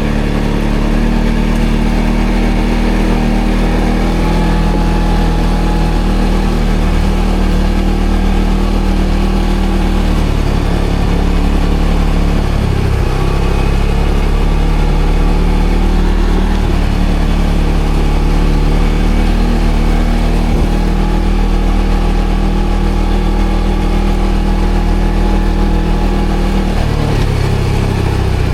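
ATV engine running at a steady speed, with a brief change in engine pitch about halfway through and again near the end.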